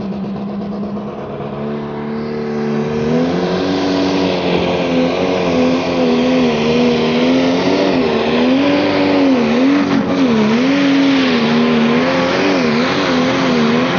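Pro Stock pulling tractor's turbocharged diesel engine running hard under full load while it drags the weight sled. The pitch holds steady for about three seconds, then climbs and wavers up and down as the tractor pulls down the track.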